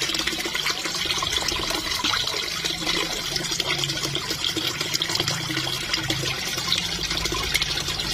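Koi splashing at the pond surface as they feed on floating pellets: continuous dense splashing with many small spattering clicks.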